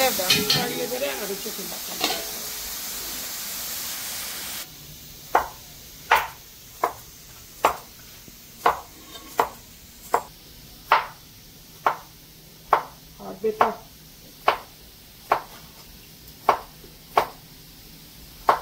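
Food sizzling and being stirred as it fries in a hot pot, then, after an abrupt cut about four and a half seconds in, a knife chopping on a cutting board with sharp, fairly even strokes about once a second.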